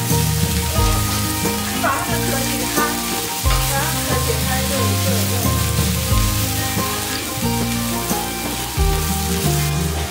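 Food sizzling on a barbecue grill, a steady crackling hiss, under background music with a bass line that steps from note to note.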